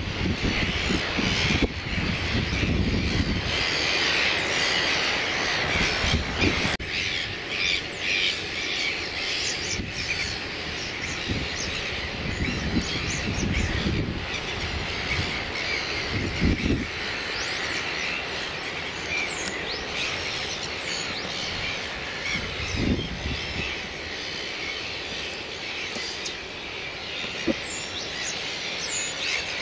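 A colony of red-billed gulls calling, many short high cries overlapping continuously, with a few low rumbles underneath.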